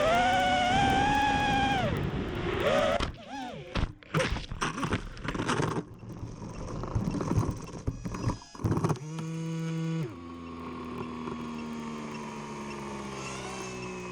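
FPV racing quadcopter's brushless motors whining, the pitch rising and falling with the throttle. A few seconds in, the sound turns choppy with several sharp knocks, then settles to a steadier, lower hum with tones that slowly fall.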